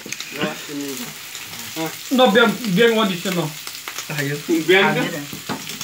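Meat sizzling on a tabletop grill, a steady hiss, with men's voices talking over it in bursts.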